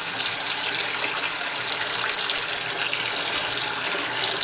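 Tap running steadily into a stainless-steel sink, filling it with water.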